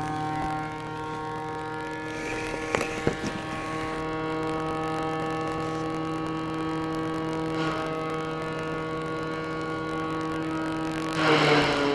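Wood chipper engine running steadily down the street, a constant pitched hum. Short noisy bursts come about three seconds in and again near the end; the last is the loudest, and the engine note dips briefly under it.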